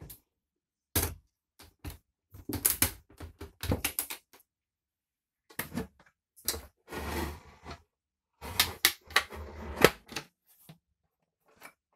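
Irregular clicks, knocks and rattles of metal aircraft galley fittings being handled, coming in clusters with short gaps and a longer rattling run near the middle.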